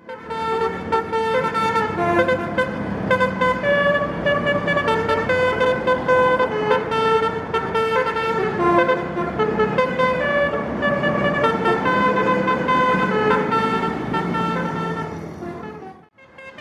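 Bus 'telolet basuri' musical horn playing a tune as a string of held, stepped notes over a low rumble. It fades and stops shortly before the end.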